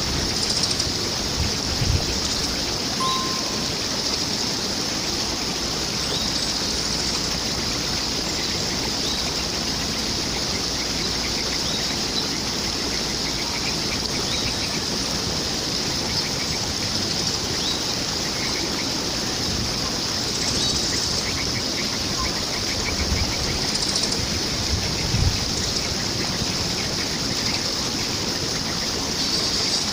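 Running water with a steady rushing hiss. Short bird chirps and faint trills come and go over it.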